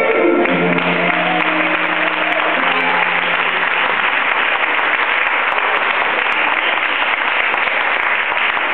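Audience applauding steadily, with the band's last held notes fading out over the first few seconds.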